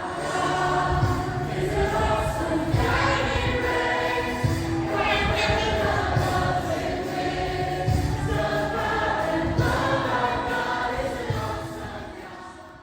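Background music with a choir singing held notes over a steady bass, fading out near the end.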